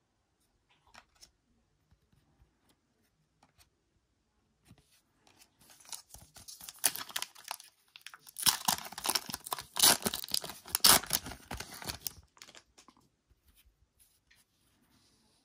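Foil trading card pack being torn open by hand: a crinkly ripping and crackling of the wrapper, starting about five seconds in, loudest in the middle and stopping after about six seconds. A few faint ticks from cards being handled come before it.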